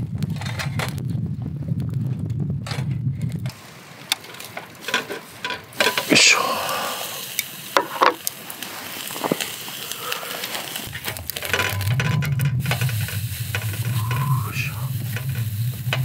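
Thick slice of beef tongue sizzling on a wire grill net over charcoal, with many crackles and pops and a couple of louder bursts about six and eight seconds in.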